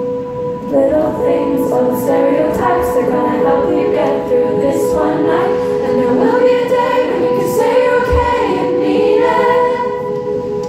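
Live amplified music: a woman singing a slow melody over a steady held note, the voice coming in about a second in.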